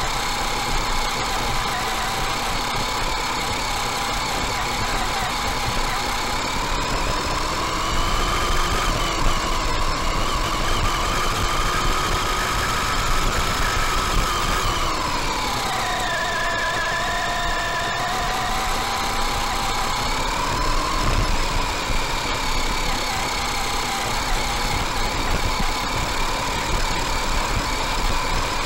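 RC buggy's electric drive motor and gears whining as it drives over grass, the pitch rising and falling with its speed: it climbs to its highest about halfway through, drops sharply, then climbs again.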